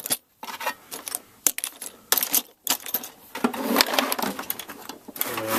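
Screwdrivers and spanners clinking and rattling in a metal toolbox tray as it is handled: a run of sharp metallic clicks and knocks, busier in the second half.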